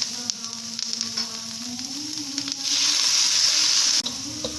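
Betel leaves and tempe sizzling in hot oil in a stir-fry pan, with light ticks. About two-thirds of the way in, a sudden louder hiss lasts about a second and then cuts off: water added to the hot pan.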